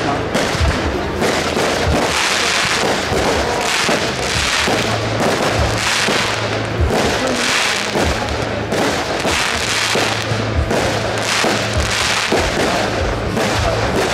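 Fireworks display: aerial shells launching and bursting in quick succession, a continuous run of bangs and crackling pops.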